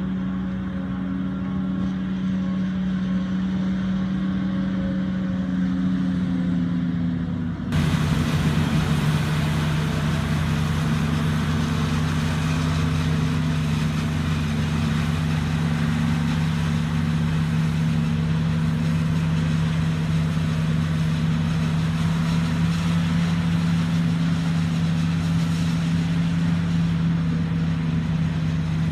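John Deere 7750 self-propelled forage harvester and the tractor beside it running steadily under load while chopping maize, a continuous engine drone. About eight seconds in the sound changes abruptly, turning brighter and fuller and settling a little lower in pitch.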